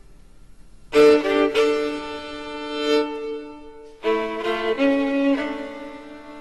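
Soundtrack music on bowed strings, led by violin: a sharp accented chord about a second in that is held, then a second phrase of quick changing notes about four seconds in, settling into held notes that fade.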